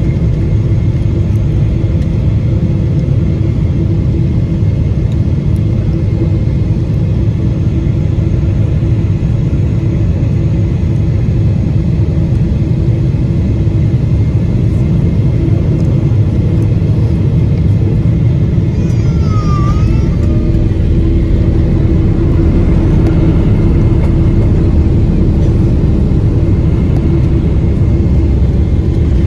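Boeing 777-300ER on final approach and landing, heard inside the cabin at a window seat over its GE90-115B engine: a loud, steady rumble of engine and airflow with a steady hum, growing a little louder over the last several seconds.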